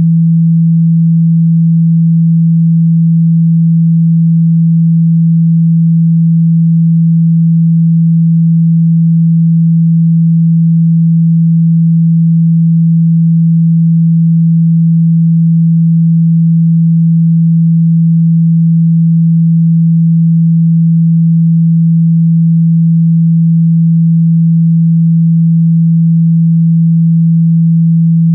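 A single loud, steady low pure tone, held without a break or change in pitch: a speaker-cleaning tone meant to vibrate a phone speaker so that water and dust are pushed out of it.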